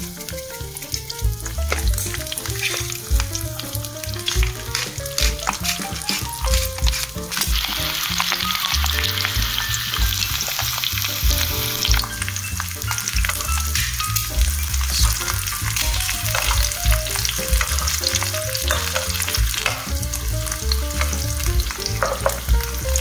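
An egg and a sausage frying in hot oil in a nonstick pan, sizzling steadily, with a metal spoon clicking and scraping against the pan now and then.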